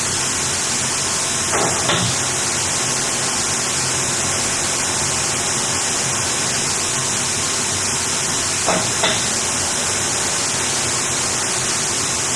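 Automatic self-cleaning wastewater centrifuge running its clean cycle to discharge the dewatered sludge cake: a loud, steady hissing rush, with two brief knocks, one about two seconds in and one about nine seconds in.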